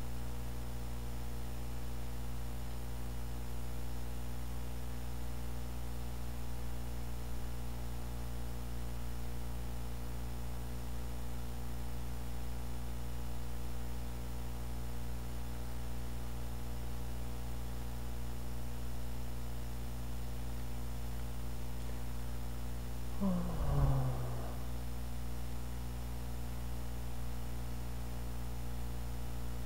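Steady low electrical mains hum picked up by the recording microphone. About 23 seconds in there is one short murmur from a person's voice.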